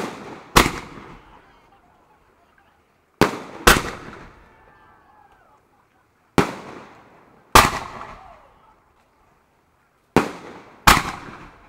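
Aerial firework shells bursting: four pairs of sharp bangs about three seconds apart, each bang trailing off in a fading echo.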